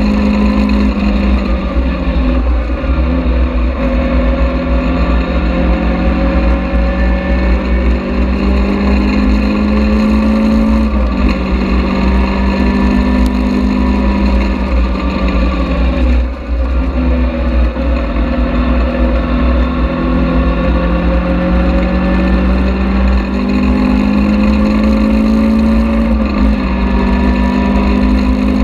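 Caterham Seven's engine pulling hard, its pitch climbing through each gear and falling back sharply at the gear changes, about four times. Steady low wind rumble from the open cockpit runs underneath.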